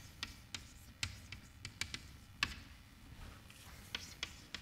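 Chalk writing on a blackboard: a run of about ten sharp, irregular taps and short strokes as a word is written. The loudest tap comes about halfway through, followed by a quieter gap of about a second.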